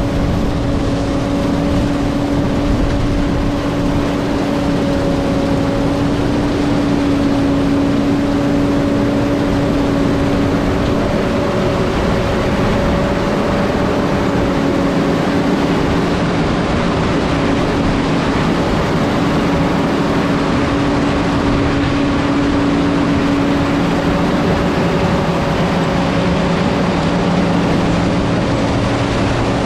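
John Deere 9600 combine running steadily while harvesting soybeans: a constant, loud machine drone with a steady hum held throughout.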